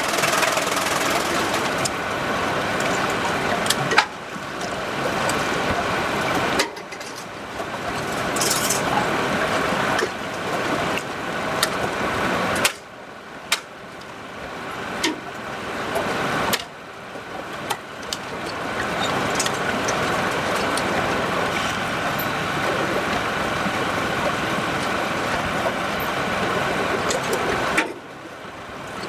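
Sawmill machinery running, a loud steady mechanical noise broken by a few sharp knocks. It changes abruptly several times where the footage cuts between shots.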